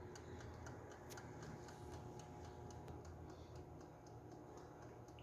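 Near silence: faint room tone with a low steady hum and a few light ticks.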